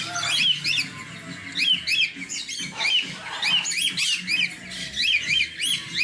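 Chorus of many small caged birds chirping, quick high chirps repeating and overlapping without a break.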